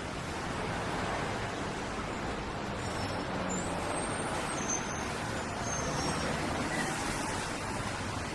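City traffic ambience: a steady wash of road-vehicle noise, with a few faint short high-pitched tones a few seconds in.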